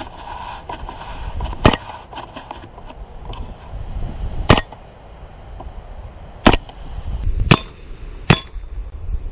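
Five rifle shots at an irregular pace, the last three coming quicker, each a sharp crack. Some are followed by a brief high ping of a steel target ringing from a hit.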